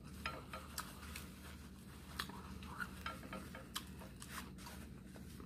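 Faint chewing of a hard-shell taco: scattered soft crunches and clicks over a steady low hum.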